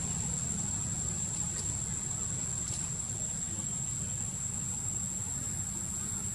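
Steady outdoor background: a low rumble like a distant engine, under a continuous thin high-pitched whine, with a few faint ticks.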